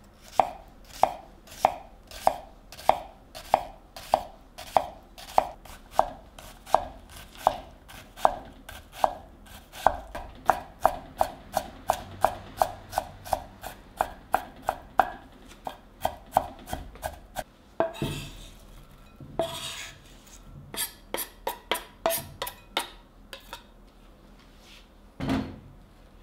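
Kitchen knife chopping an onion on a wooden cutting board. The even strokes come about one and a half a second, then quicken. A couple of brief rasping noises come partway through, then a last run of chops and a single dull thump near the end.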